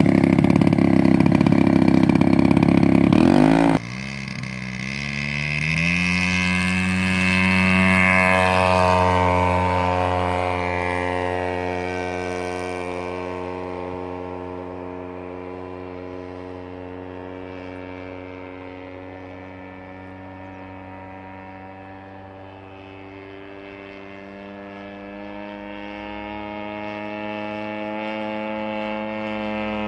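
Engine of a large-scale radio-controlled Pitts S1 biplane: very loud close up for the first few seconds, then, after a sudden drop in level, rising in pitch as it is throttled up for takeoff. It then settles into a steady drone in flight, fading as the plane flies away and growing louder again near the end.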